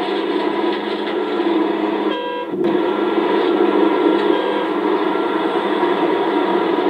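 Komatsu PC650-5 hydraulic excavator's diesel engine running steadily under load while it swings and dumps its bucket, heard dull and narrow through worn VHS tape. The sound breaks off for a moment about two seconds in.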